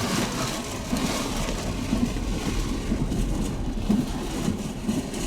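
A vehicle driving in a severe thunderstorm: a steady, fluctuating rumble of road and engine noise mixed with rain and gusting wind against the vehicle.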